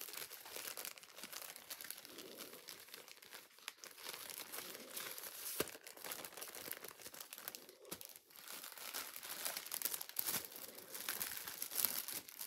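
Continuous crinkling and rustling of craft materials being handled, with many small crackles and clicks.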